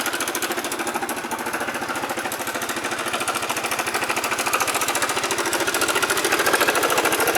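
Kymco Racing King 180Fi scooter engine running with a rapid, even mechanical clatter from the top end, growing a little louder near the end. The noise climbs with engine speed, and the cause turned out to be a broken cam chain tensioner bar, letting the cam chain slap.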